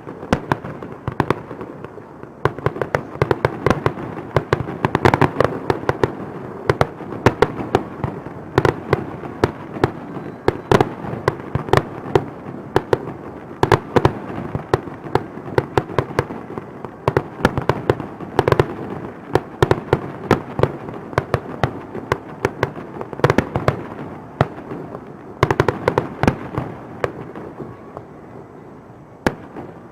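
Aerial fireworks display going off in a rapid, continuous barrage: many sharp bangs a second over a steady rumble from the bursts.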